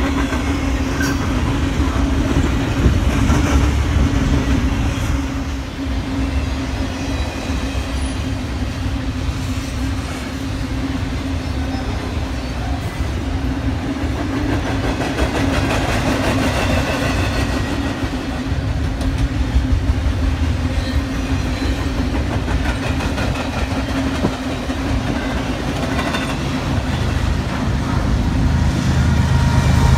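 Train rolling past, its railcars' wheels rumbling and clattering over the track under a steady low hum.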